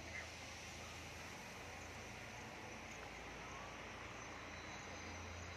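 Faint, steady outdoor background noise with a constant low hum underneath.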